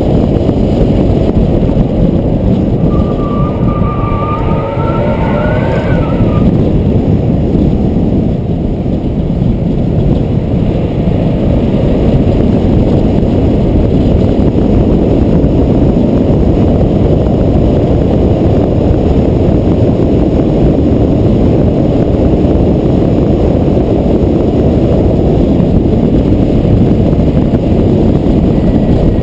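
Follow car driving downhill with wind rushing over its outside-mounted camera microphone: a loud, steady low rumble of wind buffeting, tyre and engine noise. About three seconds in, a thin squeal rises in pitch for a few seconds.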